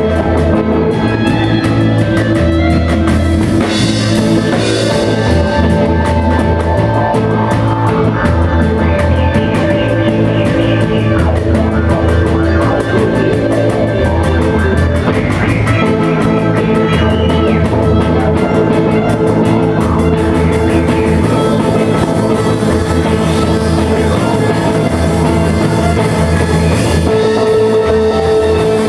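Live instrumental dub band playing: drum kit with fast, constant cymbal ticks, a deep bass line moving in long notes about once a second, and sustained electric guitar tones.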